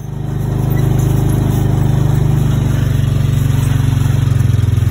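An engine running steadily with a fast, even low throb.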